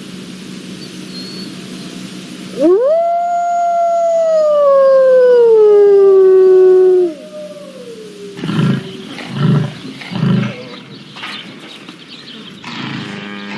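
Wolf howling: one long call that rises sharply, holds, then slowly sinks, with a second howl overlapping near its end. Over a low steady hum, a run of shorter low, pulsing animal calls follows about a second later.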